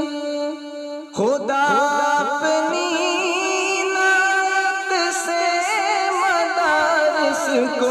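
Wordless sung interlude of an Urdu devotional nazam: a held note breaks off about a second in, then quick rising vocal glides lead into a long ornamented melody with wavering pitch.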